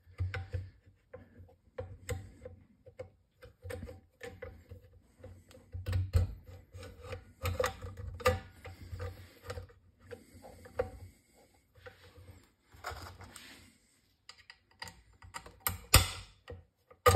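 Small metal clicks and taps of a Remington Model Four rifle's trigger group being handled and fitted into the receiver, with soft knocks of the rifle against its plastic cradle and one sharp, louder click near the end.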